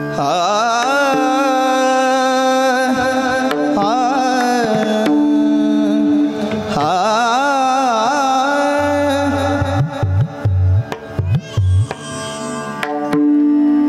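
Devotional kirtan music: a singer draws out a long wordless melodic line with wavering, ornamented pitch over a steady held drone. From about nine seconds in, a hand drum joins with a run of deep strokes.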